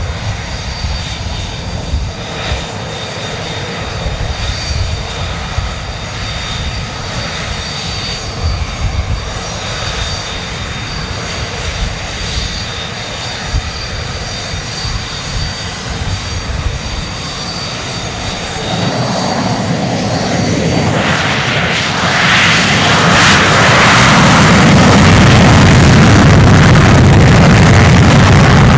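F-35B Lightning II's Pratt & Whitney F135 jet engine holding at low power with a steady high whine. About nineteen seconds in it spools up. Around twenty-two seconds it goes to afterburner, a loud full-power roar for the takeoff roll.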